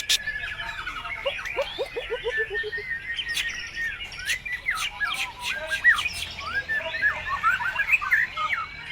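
White-rumped shama singing a varied song full of mimicked calls of other birds: rapid whistles, rising and falling notes and sharp chips, with a quick run of lower notes stepping down in pitch about a second and a half in.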